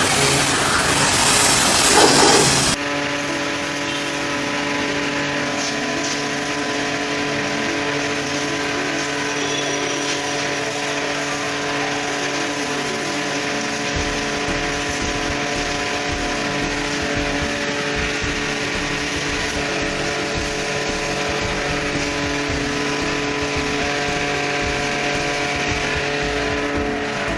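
Total TGT11246 electric pressure washer running at 160 bar. A loud hiss of spray for the first few seconds, then a steady motor hum.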